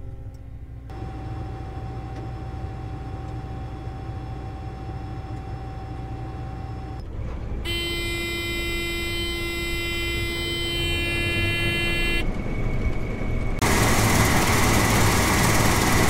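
Combine running, heard from inside the cab: a steady low engine hum that grows louder. A thin steady whine runs through the first half. A horn-like tone sounds continuously for about four and a half seconds midway, and a loud rushing noise takes over near the end.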